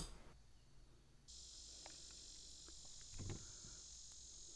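Faint, steady insect chorus that starts suddenly about a second in. A soft low thump comes a little after the middle.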